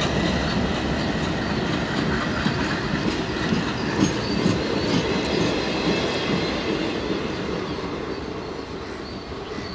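Flat wagons and a brake van of an engineering train rolling past on the rails, wheels rumbling and clicking over the track with a faint squeal. The sound fades over the last few seconds as the end of the train moves away.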